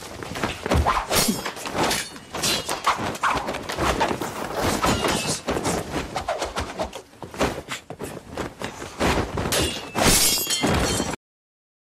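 Dubbed fight sound effects: a quick run of hits, swishes and ringing sword clashes, the loudest a crash about ten seconds in, after which the sound cuts off abruptly.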